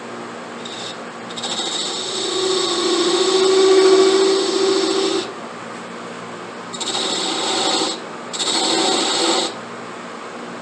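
Abrasive rasping on a briar pipe bowl as it is shaped, in separate passes: a long one of about four seconds with a faint hum under it, then two shorter ones of about a second each.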